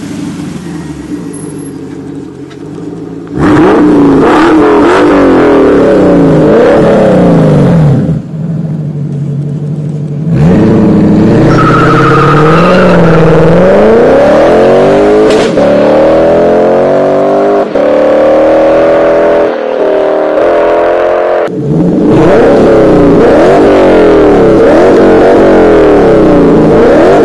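Lexus IS-F's V8 through a muffler-less quad-tip 'Bazooka' exhaust (Borla resonator kept), running loud. It pulls hard with the pitch climbing and dropping through the gears in several abruptly cut clips. It ends with a run of quick revs.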